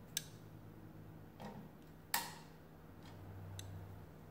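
Two sharp clicks about two seconds apart, with a softer rustle between them, as meter test-lead clips are handled and clipped on; a brief low hum follows near the end.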